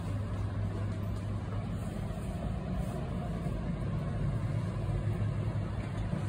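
Steady low mechanical hum over an even background noise, with no distinct events.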